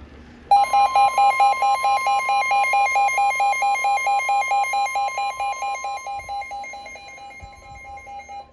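Emergency Alert System attention tone announcing a severe thunderstorm warning. A steady high tone sounds together with a lower tone pulsing about four times a second. It starts about half a second in and slowly fades, and the pulsing stops near the end.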